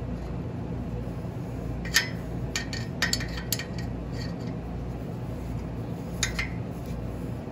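An open-end wrench clinking against the flare nut and brass fitting of a transmission fluid line as the nut is tightened down: a handful of light, scattered metal clicks over a steady low hum.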